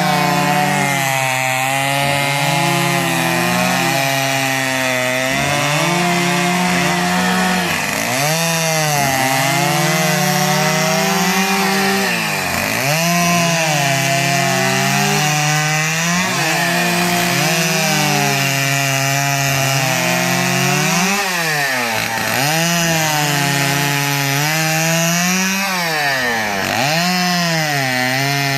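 Two-stroke chainsaw running at high revs and cutting wood. Its engine note dips sharply and climbs back again and again, every few seconds, as the chain bites into the wood.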